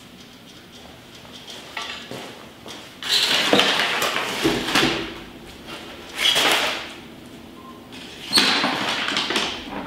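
Crumpled brown packing paper rustling in several bursts as it is gripped with long snake tongs, pulled out of a plastic tote and dropped on the floor.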